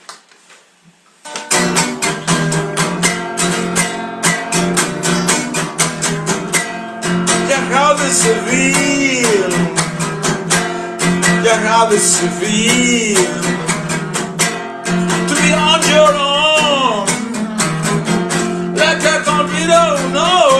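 Acoustic guitar strummed rapidly and steadily, starting about a second and a half in. From about eight seconds in, a man's voice sings along over it.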